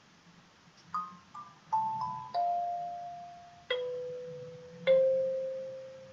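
Kalimba played slowly: about seven single plucked notes starting about a second in, mostly stepping down in pitch, each left to ring and fade, the later ones spaced further apart.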